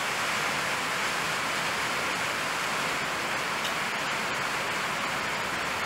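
Hard rain falling, a steady hiss of noise.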